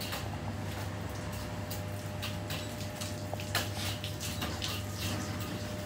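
Fish market background: a steady low hum with a faint steady tone above it, and scattered light clicks and knocks.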